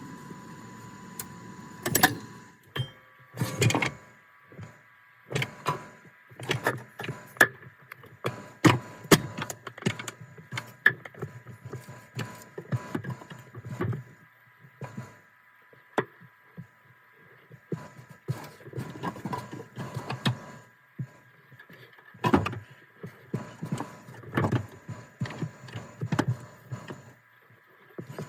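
Irregular metallic clanks, knocks and rattles of parts and tools being handled during transmission installation work, some in quick clusters, over a steady high electrical hum.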